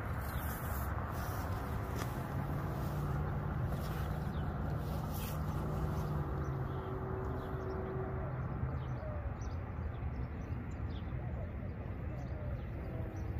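Outdoor background of a steady low rumble from distant road and rail traffic, with a faint hum in the first half and a few faint bird chirps.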